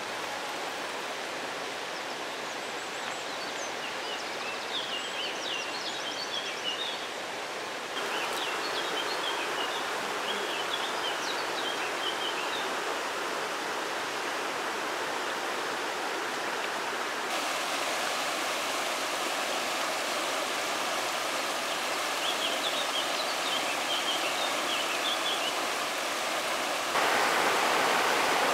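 Shallow rocky river rushing over stones and riffles, a steady rush that steps louder abruptly a few times and is loudest near the end. Small birds chirp over it in three short bouts.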